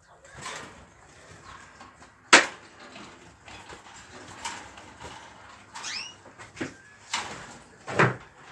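Small caged birds giving short chirps, including a couple of quick rising calls about six seconds in. A sharp knock comes about two seconds in and a duller thump near the end.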